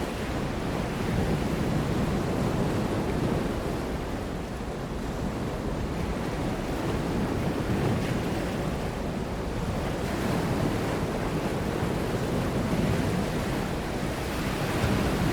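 Ocean surf: waves breaking and washing in a continuous rush that swells and eases slowly every few seconds.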